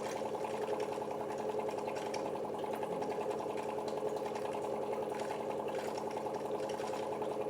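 KENT reverse-osmosis water purifier running, its booster pump motor giving a steady hum with a fast buzz while water passes through the filtration stages.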